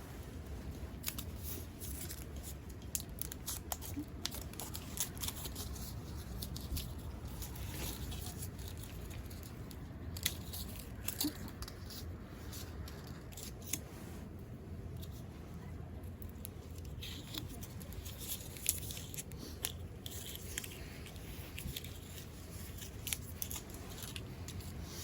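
Scattered small sharp clicks and crinkles of things being handled close by, over a low steady rumble of strong wind.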